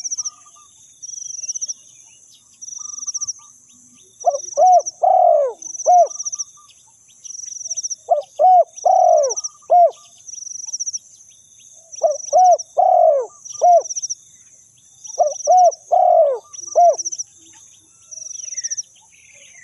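Spotted dove cooing: four phrases of about five short, arched coos each, a few seconds apart. Behind it, a high, rapidly pulsed trill repeats about once a second.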